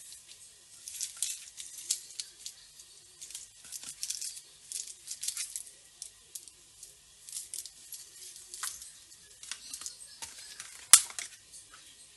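Small clear plastic zip-lock bags crinkling and rustling as fingers handle them, in short crackles with pauses between. One sharp click near the end.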